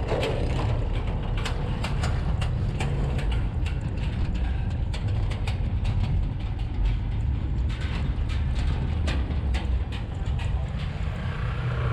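Motorbike riding along at steady speed: a constant low engine and wind rumble, with many short sharp clicks and rattles.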